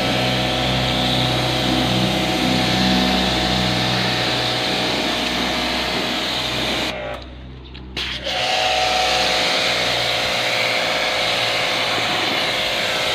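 Pressure washer running with a steady motor whine while its jet hisses against a window-type air conditioner's coil, fan and housing, rinsing the unit out. The sound briefly drops out about seven seconds in, then resumes.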